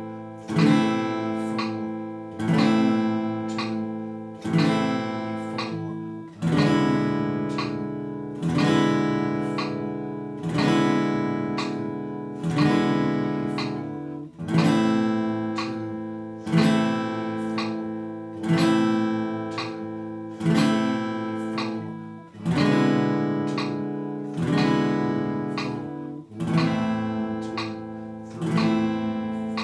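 Acoustic guitar strummed with slow downstrokes, one chord about every two seconds and each left to ring, changing chord every four strums. It is a half-note chord-change exercise in A minor.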